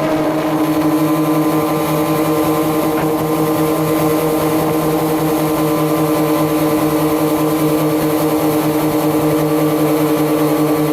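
Brushless electric motor and propeller of a small DIY RC plane running at steady throttle: a loud, even buzzing hum held at one pitch, with a rushing hiss of air underneath.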